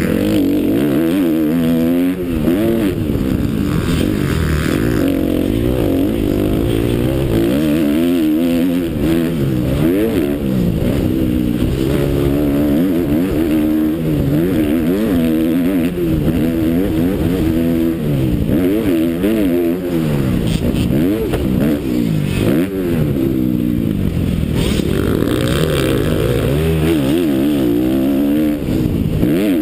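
Motocross bike engine revving up and down again and again as it is ridden hard around a dirt track, its pitch rising and falling every second or two with each gear change and corner, heard from the rider's helmet.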